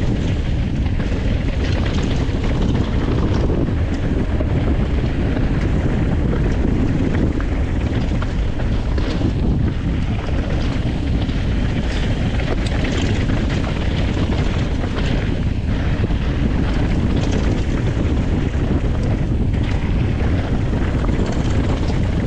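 Wind buffeting the microphone of a camera riding along on a moving mountain bike: a loud, steady low rumble, with scattered short clicks and rattles from the bike over the trail.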